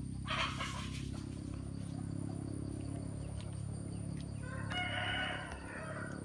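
A short splash of water where a fishing line enters a muddy stream, near the start. Later a rooster crows once, a steady pitched call about a second long, about five seconds in.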